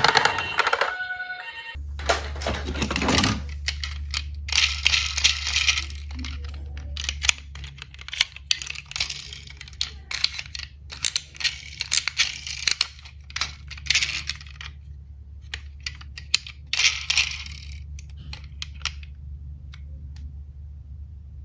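Small diecast metal toy cars clicking, clinking and rattling as they are handled and knocked together, in irregular bursts over a steady low hum that starts about two seconds in.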